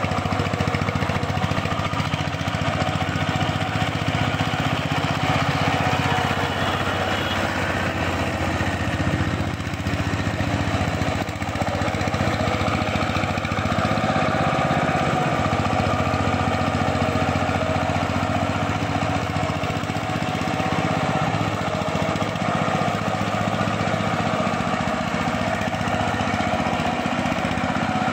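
Power tiller's single-cylinder diesel engine running steadily as the two-wheel tractor works through a flooded paddy field.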